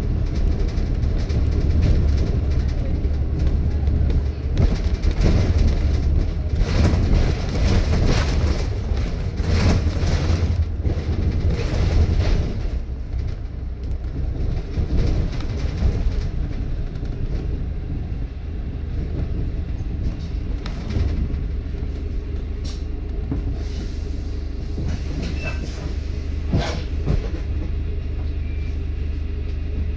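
London double-decker bus on the move, heard from inside: a steady low drivetrain hum and road rumble with surging noise, easing off about halfway through, and a few sharp rattles or knocks from the body near the end.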